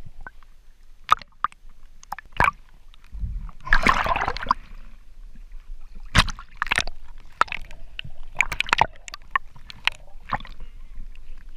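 Water sloshing and splashing around a GoPro held at and just under the surface while snorkeling, with scattered sharp knocks and clicks. A longer splashing rush comes about four seconds in.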